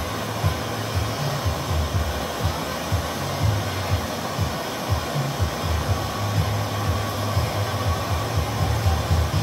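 Handheld gas torch burning with a steady hissing flame and a low, fluttering rumble, heating a joint on bronze castings while filler rod is fed in.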